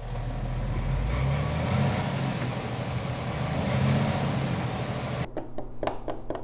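A bus engine sound effect running with a low hum and road noise, swelling twice, for a toy school bus driving across the table. About five seconds in it stops and gives way to several light clicks of plastic toy figures being set down on a hard tabletop.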